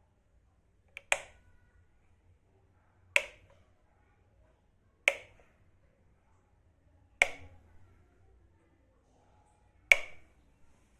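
A switch being flicked on, a single sharp click repeated five times about every two seconds.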